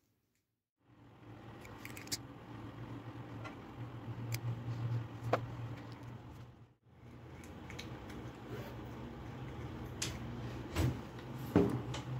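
Workbench handling noise: scattered clicks and light taps as the knife and tools are handled, over a steady low hum, with a sharper knock near the end. The sound cuts out briefly a little past halfway.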